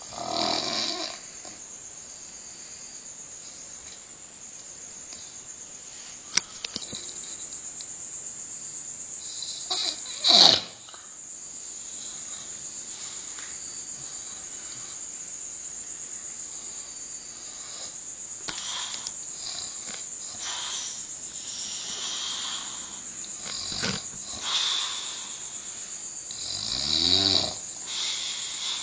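A man snoring in his sleep: irregular snorts at uneven gaps, the loudest about ten seconds in, then a run of smaller, closer snores in the second half, one with a wavering pitched tone near the end.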